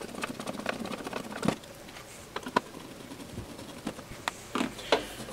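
Screwdriver backing out the screws of a metal instrument case's bottom panel: a run of small ticks, a sharper click about a second and a half in, and a few more scattered clicks later on.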